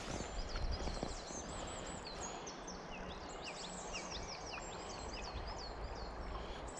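Several songbirds chirping and singing in quick short phrases over a steady low rush of the river flowing past.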